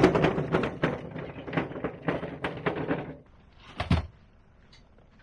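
Metal-framed wooden hand cart rattling and rumbling as its wheels roll over stone paving, stopping about three seconds in. A single thump follows about a second later.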